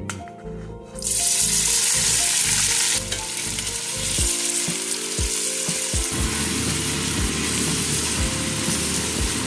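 Diced red onion hitting hot oil in a stainless steel pot: a loud sizzle starts suddenly about a second in, eases a little after two seconds, and keeps going as the onion is stirred with a wooden spatula.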